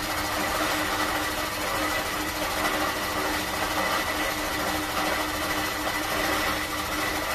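Emery stone flour mill, driven by a 2 HP electric motor through a V-belt, running steadily while grinding grain between its 12-inch emery stones: a constant mechanical hum with a thin high whine.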